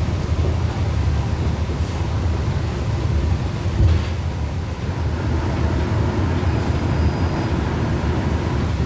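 Volkswagen Volksbus 17.230 OD bus running at low engine revs: a steady low rumble, with the gearbox growling and a faint steady whine. A couple of light knocks come about two and four seconds in.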